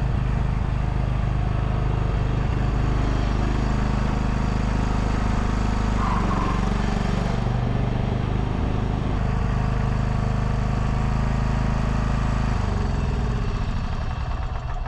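Engine of the farm machine used to push feed up to the cows, running steadily under load. Its note changes and it eases off near the end.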